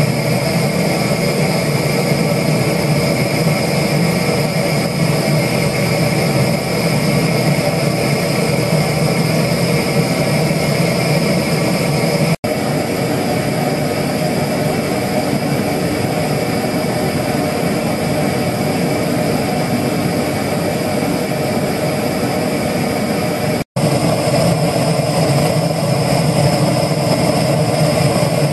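Butane torch firing into a small paint-tin furnace: a loud, steady roar of the gas flame heating a crucible of scrap aluminium toward melting. The sound cuts out for an instant twice.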